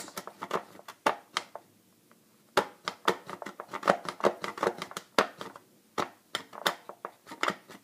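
X-Acto knife scraping and picking at a green plastic soda bottle: a run of irregular sharp clicks and short scratches, with a brief pause about two seconds in.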